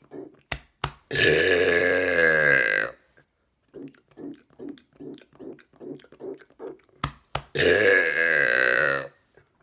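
A man belching two long, loud burps, each lasting about two seconds, its pitch sinking toward the end. Two sharp clicks come just before each burp, and faint quick rhythmic sounds fill the gap between them.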